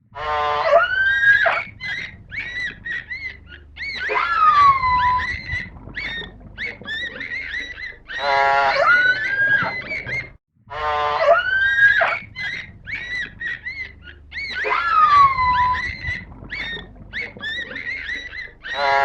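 Whale calls under water: a buzzy pulsed call, long rising and falling whistles and many short high chirps. The sequence of about ten seconds breaks off briefly about halfway and starts over.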